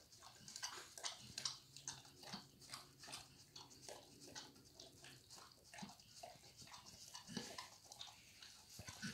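German Shepherd licking the last scraps of raw food from a metal pan: faint, wet tongue clicks, roughly two to three a second.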